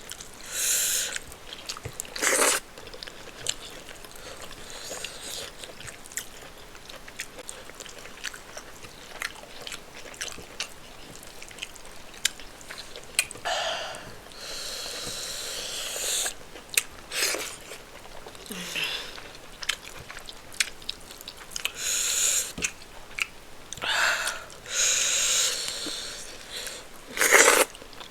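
Close-miked eating of rice and spinach stew with chicken: wet chewing and lip-smacking clicks, broken every few seconds by short hissing bursts of breath, the loudest near the end.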